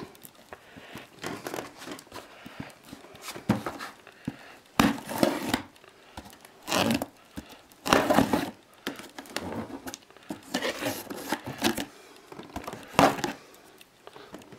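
Plastic film and packing tape on a cardboard parcel being slit with a knife and pulled open by hand: irregular crinkling and ripping in bursts, the loudest about five, eight and thirteen seconds in.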